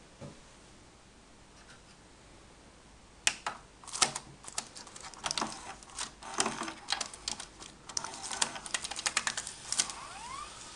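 Hands working inside an opened VHS video player: a rapid, irregular run of small clicks and crinkles that starts about three seconds in, typical of handling plastic mechanism parts and videotape that has tangled around the head. A faint rising whine comes in near the end.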